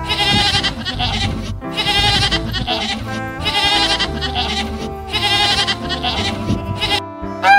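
Domestic goats bleating: four long, quavering bleats in a row, over background music.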